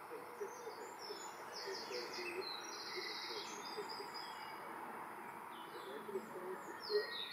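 Small birds singing and chirping in high, short phrases, with a quick rattling trill about two seconds in, over a steady outdoor background hiss.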